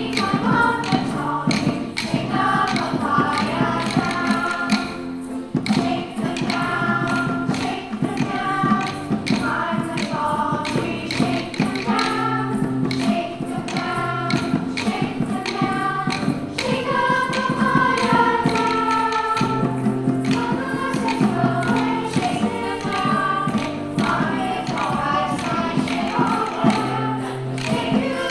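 A children's choir singing a song over steady instrumental accompaniment, with a quick, regular tapping beat.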